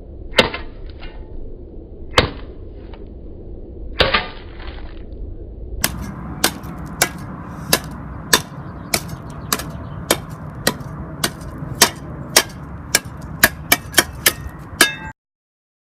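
Hammer blows smashing a Samsung Galaxy S3 smartphone: three separate strikes, each followed by a brief rattle, then a quick, even run of sharp blows about two a second that cuts off suddenly near the end.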